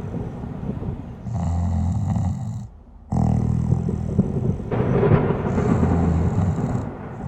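A sleeping person snoring: low, rough snores lasting a second or two each, with a short break about three seconds in.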